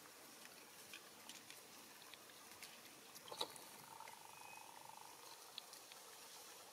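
Near silence: faint outdoor ambience with a few light clicks, one sharper tick about three and a half seconds in, and a faint brief tone soon after.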